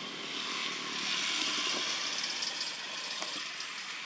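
Steady outdoor background noise: a dense, even buzzing hiss, strongest in the upper range, with a few faint ticks.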